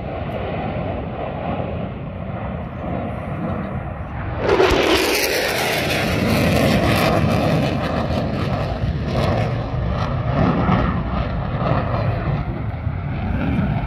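Fighter jet making a low pass: its engine roar builds, surges suddenly about four and a half seconds in with a quick falling pitch sweep as it goes by, then carries on as a loud, crackling jet roar.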